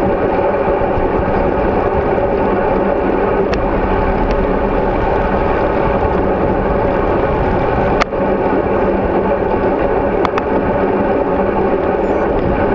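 Steady rumbling rush of wind and road vibration picked up by a GoPro Hero3 in its housing, mounted on a road bicycle riding at speed. A few sharp clicks or knocks come through, the sharpest about eight seconds in.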